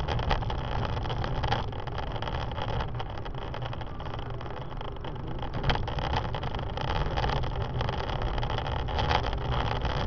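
Car driving, with steady engine and road rumble heard from inside the cabin and a few brief knocks.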